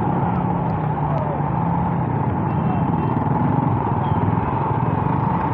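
Motorcycle engine running steadily while riding, mixed with a steady noise of rain and traffic on a wet road.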